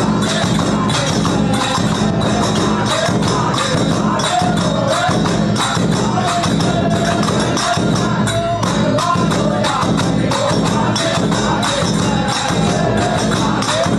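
Instrumental interlude of a folk 'pad' song: jingling hand percussion keeps a fast steady beat under a wavering melody line.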